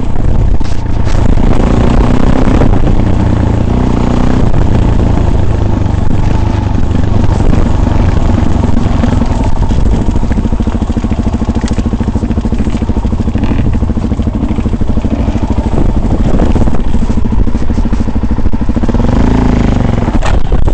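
Off-road vehicle engine running steadily under way over rough ground, with rattling and clatter mixed in.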